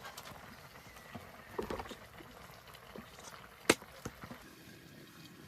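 A few short, light knocks and clicks over faint background noise, with one sharp knock about three and a half seconds in.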